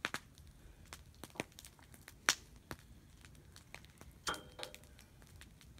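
Cow's hooves being trimmed in a metal squeeze chute: a handful of short, sharp snaps and clicks at irregular intervals, with one louder knock that rings briefly about four seconds in.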